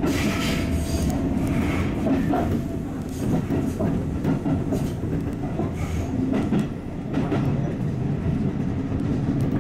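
Tobu 8000-series electric train running along the line, heard from on board: a steady rumble of wheels and motors with occasional clicks as the wheels cross rail joints.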